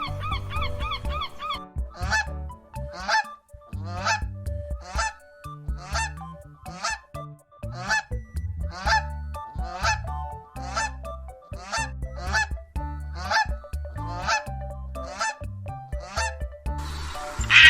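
A large bird giving loud honking calls over and over, a bit under one a second. The honking takes over from a rapid trilling call about a second and a half in.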